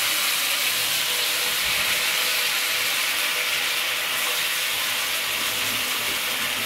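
Sauce and chopped garlic sizzling steadily in hot oil in a nonstick frying pan as a spatula stirs them.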